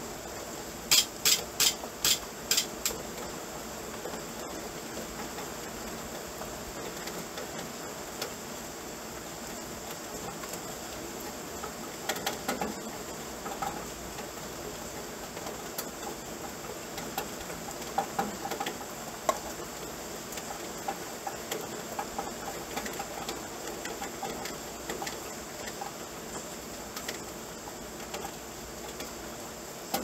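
Rain falling at night, a steady hiss with scattered ticks of drops. About a second in there is a quick run of about six sharp ticks, and clusters of fainter ticks come and go later.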